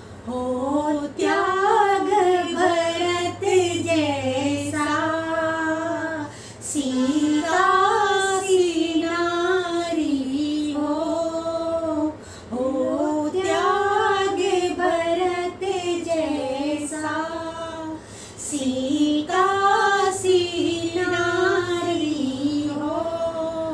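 Two women's voices singing a Hindi devotional bhajan to Ram together, in long, wavering held notes with short pauses between phrases.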